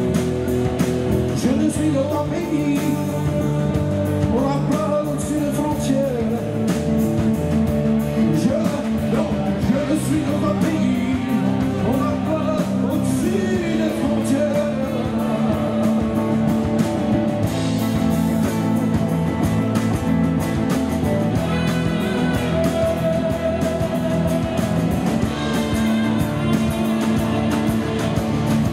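Live band playing: electric guitars, saxophone, bass and drums, with a man singing over them.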